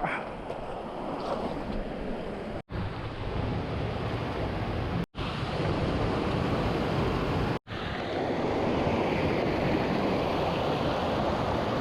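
Rushing water of a rocky mountain stream, a steady noise that grows a little louder about halfway through and breaks off for an instant three times.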